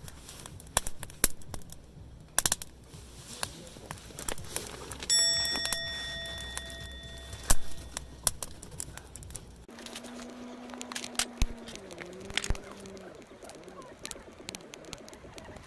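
Campfire wood crackling and popping in irregular sharp snaps. About five seconds in a metal object is struck once and rings for a couple of seconds, and in the second half a low tone steps down in pitch.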